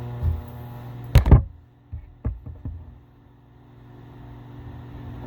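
Microwave oven running with a steady electrical hum. About a second in there is a loud knock, after which the hum stops and a few lighter clicks follow.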